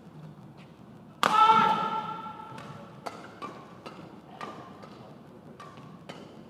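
Badminton rally: sharp racket hits on the shuttlecock and shoe sounds on the court mat, every half second to second, with a loud squeak held for about a second near the start.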